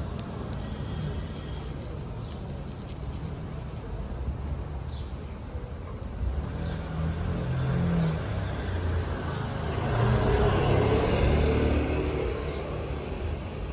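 Street traffic: a steady low rumble of passing cars, swelling as a louder vehicle goes by near the end.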